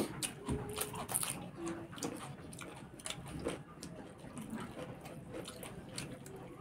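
People eating with their hands: chewing and lip-smacking, with many small wet clicks as fingers work rice on steel plates.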